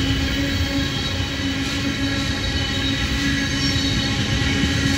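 Freight train of tank cars rolling past: steady running noise of steel wheels on the rails.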